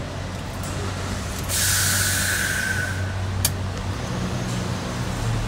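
Low, steady vehicle engine hum heard from inside a car cabin in a queue of traffic. About a second and a half in, a loud air-brake hiss lasts about a second and a half, and a sharp click follows shortly after.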